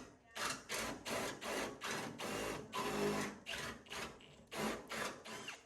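Quick, repeated scraping strokes, about two to three a second, as of hand work on a hard surface.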